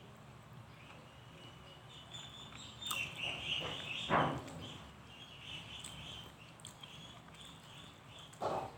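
Close-miked eating sounds: wet mouth noises, with a louder burst about three to four seconds in and another near the end, over faint, intermittent high chirping.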